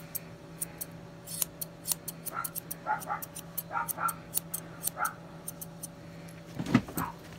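Curved grooming scissors snipping the hair off the front of a Lhasa Apso puppy's foot, in quick irregular snips. A few short high squeaks come in the middle, and a louder knock comes near the end.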